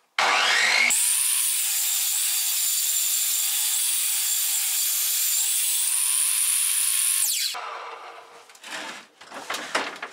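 A handheld power cutting tool spins up with a rising whine and then cuts steadily through a clamped workpiece for about seven seconds, with a loud, hissing cutting noise. It winds down with a falling tone, followed by a few knocks and clatter as the piece is handled.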